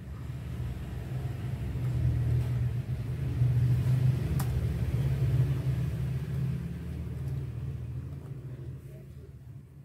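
Low engine rumble of a passing vehicle, building to a peak around the middle and fading away.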